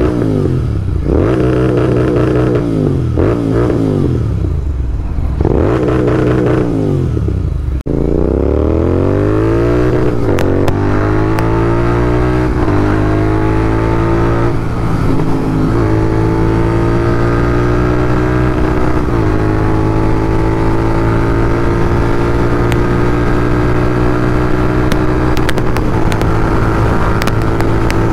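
Royal Enfield Continental GT650's parallel-twin engine through a Red Rooster Performance exhaust, revved in several quick throttle blips for about eight seconds. The revs then climb and are held steady and high.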